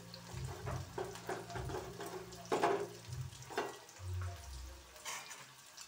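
Chopped onion, garlic and green chilli sizzling in hot oil in a kadhai, with a few short knocks.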